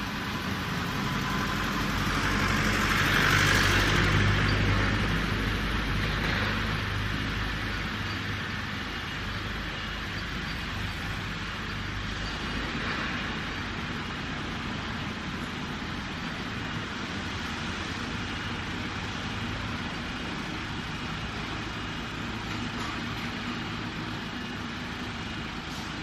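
Tracked skid steer loader's engine running steadily, with its lift arms being worked. A rushing hiss swells to its loudest about three to four seconds in, then settles back to a steady run.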